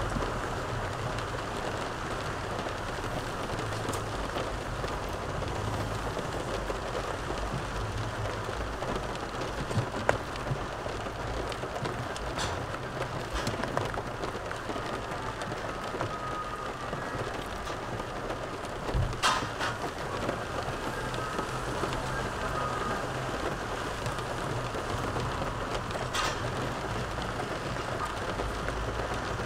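Steady rushing noise in a car cabin, with a few sharp clicks of a metal fork against a plastic takeaway container.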